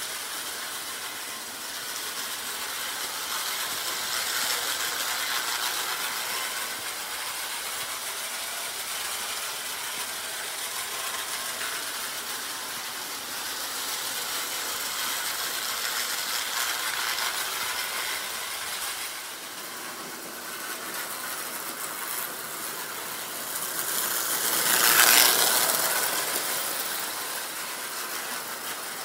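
Prewar American Flyer electric toy trains running on tinplate track: a steady mechanical clatter of wheels and motor gears. It swells to its loudest about 25 seconds in, then eases back.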